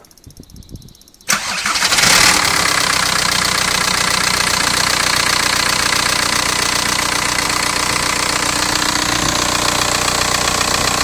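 Volkswagen 1.9 TDI AGR four-cylinder turbodiesel starting suddenly about a second in, then running steadily with the noise the owner calls bad.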